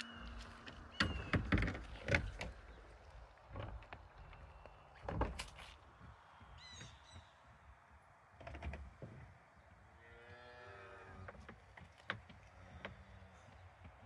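Footsteps and knocks in snow, scattered and irregular, with a brief high chirp about seven seconds in. About ten seconds in comes a calf's short, wavering bawl.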